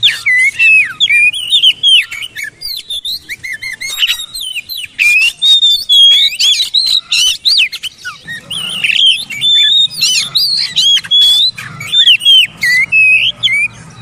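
Oriental magpie-robin (kacer) singing a fast, varied string of loud whistled phrases that glide up and down, mixed with sharp clicking notes.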